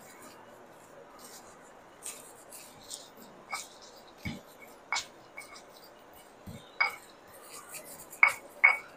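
Stone pestle grinding chili, shallot, garlic and shrimp paste in a stone mortar: soft scraping and rubbing, with sharp knocks of stone on stone in the second half, the two loudest near the end.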